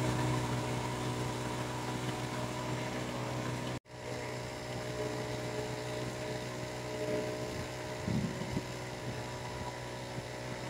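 A steady low mechanical drone, like a motor or engine running, holding one pitch throughout. It cuts out for an instant about four seconds in.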